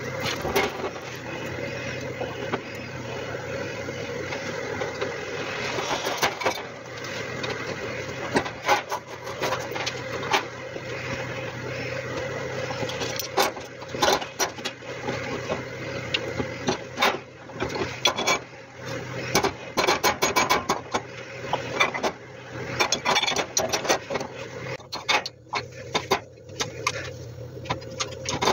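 Metal-on-metal clicks, taps and knocks from working a steel casting mould and a fresh lead casting, sparse at first and coming thick and fast in the second half, ending with side cutters snipping lead sprue. A steady mechanical hum runs underneath throughout.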